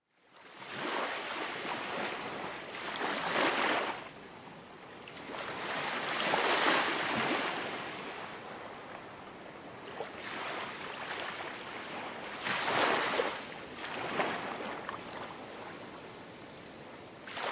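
Ocean surf: waves washing in and drawing back, the rushing noise swelling and fading every few seconds.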